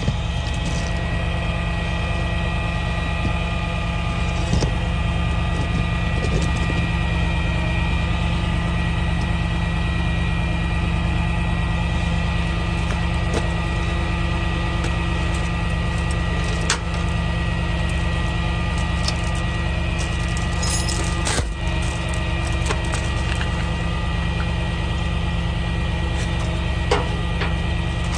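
Tow truck engine idling steadily, with a few short metal clanks and knocks from the tow gear being handled.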